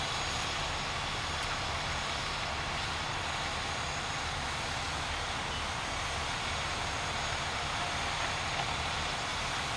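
A heavy vehicle's engine idling: a steady low rumble under an even hiss.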